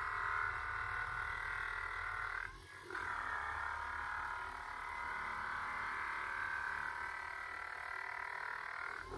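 Vibro Sculpt handheld electric massager running while pressed against the stomach, its head turning by itself: a steady motor buzz that briefly drops out about two and a half seconds in.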